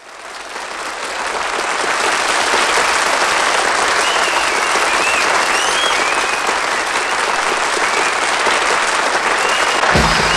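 Audience applauding, with whistles over the clapping. The applause fades in at the start. Near the end the band starts to play, with low held notes coming in under the applause.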